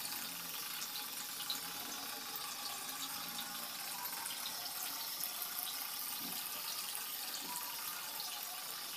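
Water churning and splashing steadily as the propeller of a small soda-can toy boat, driven by a 9 V DC motor, pushes it around a plastic tub.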